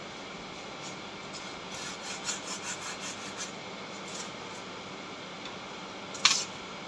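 Steady machine-room hum, with a run of light scraping ticks about two seconds in and one louder, sharp scrape near the end.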